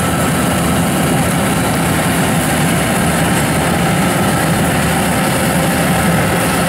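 Yanmar AW1000V rice combine harvester running steadily while cutting rice: a constant engine drone with the harvester's machinery going, holding even throughout.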